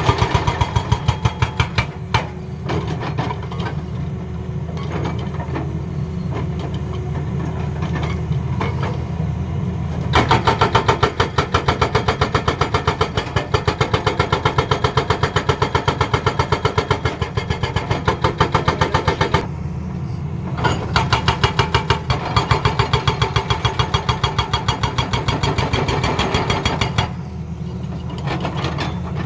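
Excavator-mounted hydraulic breaker hammering rapidly in three runs: briefly at the start, then for about nine seconds from about ten seconds in, then for about six seconds near the end. The excavator's diesel engine runs steadily underneath.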